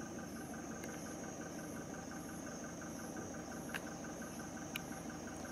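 Night chorus of insects: a steady high trill with evenly pulsing calls over it, above a low steady rumble, with a couple of faint clicks.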